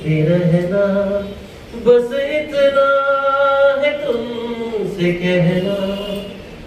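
A man singing unaccompanied into a microphone, his voice amplified through a small PA, drawing out his notes and holding one long note in the middle.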